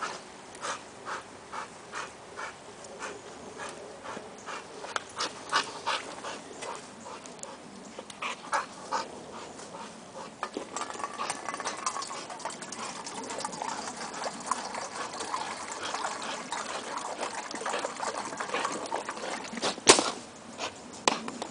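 Bulldog panting in quick even breaths, about three a second, while it scuffles about; about halfway through this gives way to denser rustling, and a single sharp crack sounds near the end.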